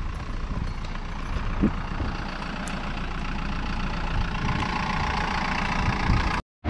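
Road traffic: a motor vehicle's engine running, growing gradually louder over a few seconds.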